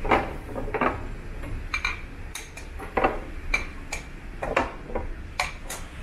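Shuffleboard discs and cues being handled, knocking together in about a dozen sharp, irregular clacks over a low steady background.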